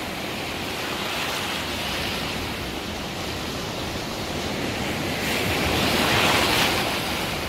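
Ocean surf washing and breaking in the shallows, a steady hiss that swells louder about five seconds in as a wave breaks close by, then eases near the end.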